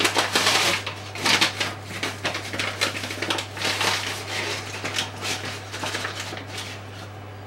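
A paper flour bag rustling and crinkling as a hand scoops flour out of it with a measuring cup, in irregular bursts that thin out toward the end.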